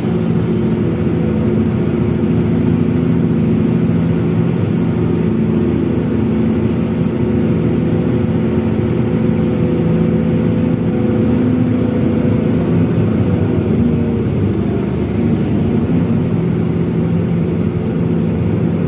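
SDLG long-arm excavator's diesel engine running steadily under work, a continuous drone that holds its pitch.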